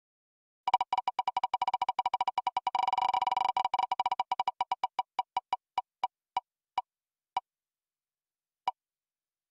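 Spinning prize-wheel web app's tick sound effect. Rapid ticking, about ten a second at first, slows steadily to single ticks over a second apart and stops near the end as the wheel comes to rest.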